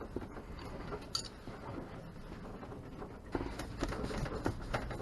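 Scattered light clicks and knocks of hand work around the engine over a faint low rumble, with the engine not yet running.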